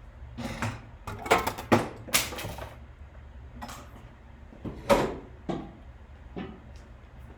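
Scattered knocks, clicks and clatters of things being handled and moved about on a workbench, in irregular clusters with the loudest knock about five seconds in.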